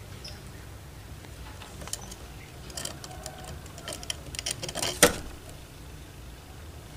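Rapid clicks and rattles, starting about two seconds in and building to one sharp knock about five seconds in, over a low steady hum.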